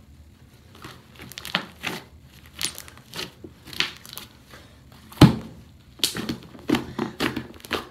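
A big blue slime, made from three slimes combined, being squeezed and folded by hand, giving a string of irregular short pops and squelches. They start about a second in, and the loudest comes a little past five seconds in.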